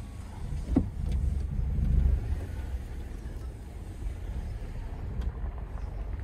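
Low rumble of a car, louder for about a second and a half shortly after a single knock near the start.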